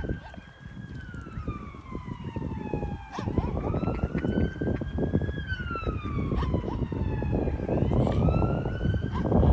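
Emergency vehicle siren wailing in the distance, a slow rise and fall that peaks about every four and a half seconds. Under it, a low rumbling noise grows louder after about three seconds.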